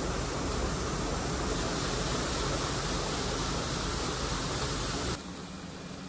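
Steady rushing noise with a low engine hum from inside a moving grain truck's cab; the level drops suddenly about five seconds in.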